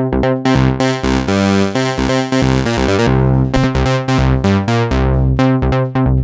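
Moog Prodigy two-oscillator analog monosynth playing a fast bass line of repeated notes. About a second in the tone opens up bright and buzzy, then from about three seconds the notes turn short and plucky and the sound grows darker again as the panel knobs are turned.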